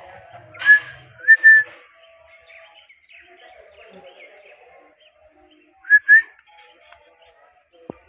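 Indian ringneck parakeets giving short, clear whistled notes: a few about a second in and a quick pair again around six seconds, with soft low chatter in between.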